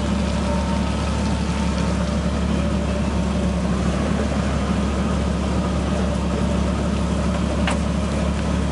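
Toyota Land Cruiser engine idling steadily with a low hum, and one faint click near the end.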